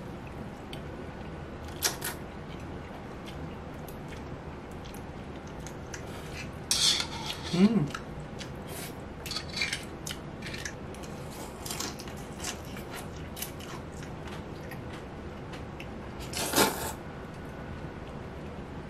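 Somen noodles being slurped in several short bursts, the loudest about 7 and 16 seconds in, with metal utensils clicking and scraping against a ceramic bowl in between. A brief rising hum of a voice comes just after the slurp near the middle.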